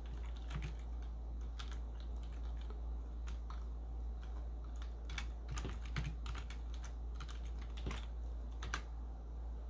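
Keystrokes on a computer keyboard: slow, irregular clicks as a short command is typed, over a steady low hum.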